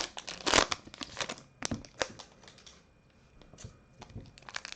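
Foil wrappers of 2020 Bowman First Edition card packs crinkling and tearing as they are handled and opened: a quick run of crackles that thins out in the middle and picks up again near the end.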